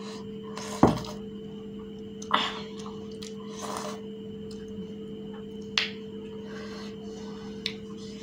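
Crisp fuchka (pani puri) shells cracking and crunching as they are broken open, filled and bitten: four sharp cracks a second or more apart, the first the loudest, and a short stretch of crunchy chewing about halfway through. A steady hum sits underneath.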